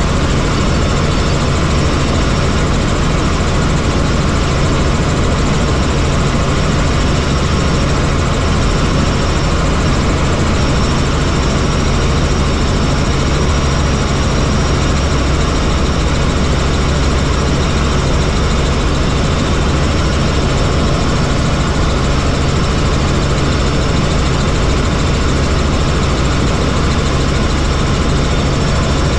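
Helicopter in flight: steady, unchanging engine and rotor noise, a low drone with a thin high whine above it.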